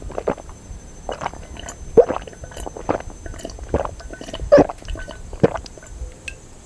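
A person gulping a drink, about seven wet swallows in a row, nearly one a second.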